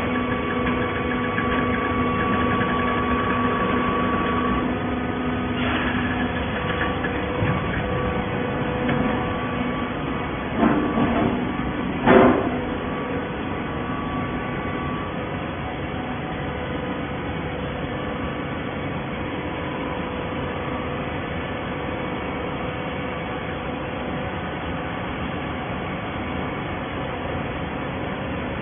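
Industrial horizontal baling press and its feed conveyor running: a steady mechanical drone with a hum, broken by a few sharp metal clanks around the middle.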